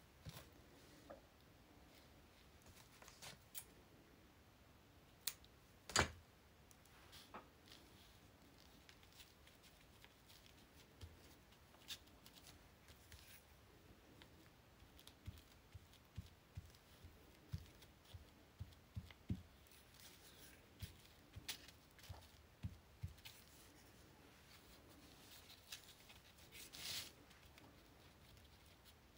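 Quiet hand-crafting sounds: a glue stick and pieces of paper and lace handled and pressed down, giving scattered faint taps and clicks. One sharper click comes about six seconds in, and a brief rustle near the end.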